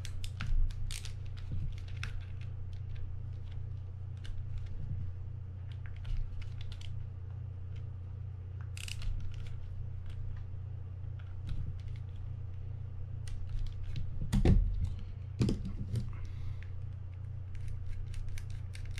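Screws being worked out of a fishing reel's side plate with a screwdriver: scattered light metal clicks and small scrapes of tool and parts. There is one louder knock about three-quarters of the way through, over a steady low hum.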